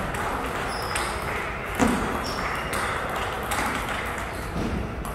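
Table tennis rally: the plastic ball ticking sharply off the paddles and the table, a hit or bounce about every half second, the loudest just under two seconds in.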